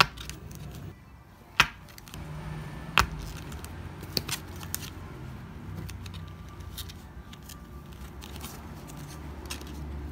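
Enamel pin backing cards and a foam packing sleeve handled on a wooden table: several sharp clicks and taps of card in the first five seconds, the loudest about a second and a half and three seconds in, with soft rustling between.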